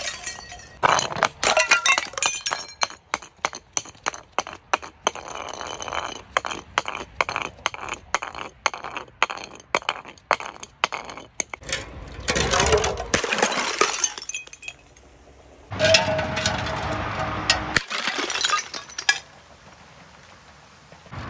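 Glass bottles and jars tumbling down concrete steps: a long run of rapid clinks and knocks as they bounce from step to step, then two bursts of glass shattering and shards scattering.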